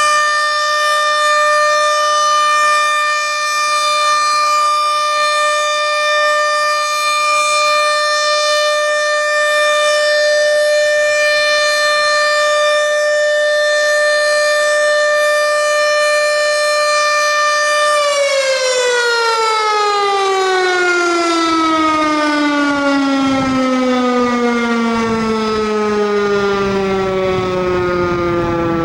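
American Signal OM-120 omnidirectional electromechanical tornado siren sounding a steady, loud alert tone. About 18 seconds in it winds down, its pitch sliding smoothly lower as the siren reaches the end of its one-minute alert cycle.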